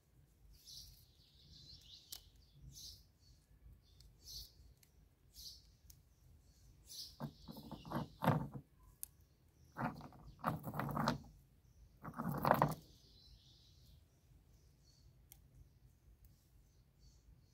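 Rocks being picked through and knocked against each other on a wooden table, a few short clattering bursts in the middle. Small birds chirp repeatedly in the background throughout.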